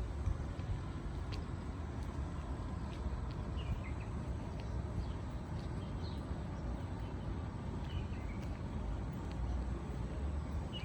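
Steady low rumble of ocean waves, with a few short high bird chirps every couple of seconds.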